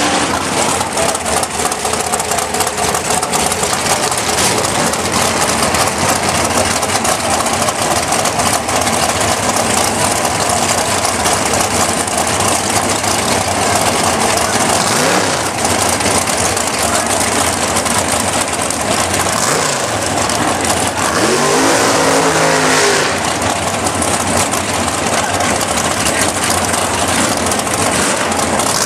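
Drag race car engines running loud at the strip, with one engine revving up and back down about three-quarters of the way through.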